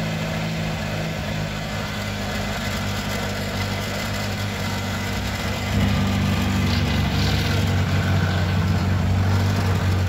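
Ford Escort Mk2 rally car's engine idling steadily, growing louder about six seconds in.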